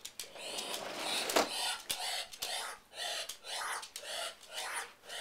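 Muscovy duck at the door: a series of raspy scraping strokes, roughly one every two-thirds of a second, with one sharp knock about one and a half seconds in.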